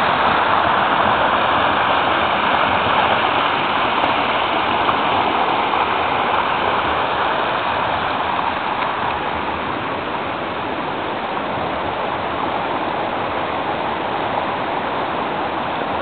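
Small woodland waterfall and creek rushing over rocks: a steady, even rush of water that eases a little in loudness over the first several seconds.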